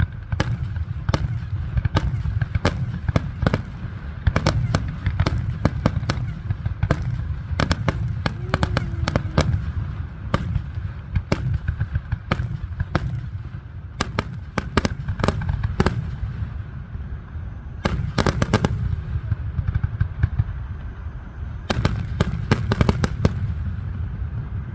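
Fireworks display: a continual run of sharp bangs and crackles over a steady low rumble, crowding into denser volleys several times.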